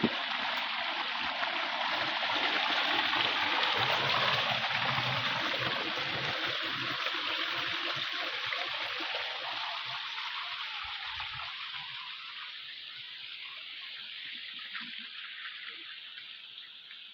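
River water rushing over rocks, a steady loud wash that slowly fades over the second half.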